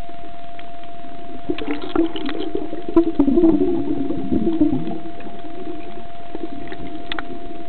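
Sound picked up by a camera held underwater while snorkeling: muffled water noise with a faint steady hum, scattered clicks, and a busier spell of irregular gurgling in the middle.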